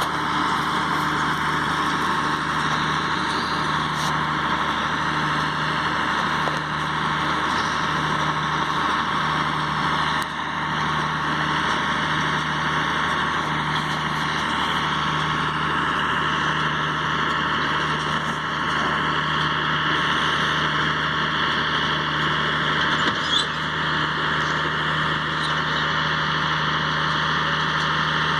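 Tractor engine running steadily, a constant unbroken drone.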